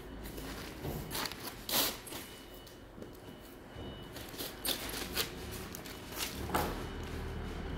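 Thin wood veneer sheets being lifted and laid back by hand, giving several short swishing rustles; the loudest comes about two seconds in.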